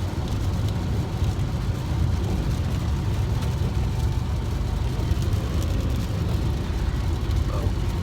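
Steady road and engine rumble heard from inside a moving car, with rain on the car adding a faint hiss.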